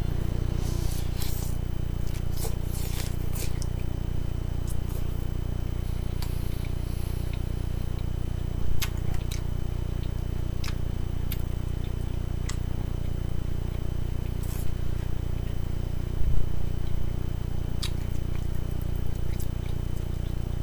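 Salad being eaten: chewing, with a fork clicking and scraping in a bowl, heard as scattered short sharp clicks over a steady low hum.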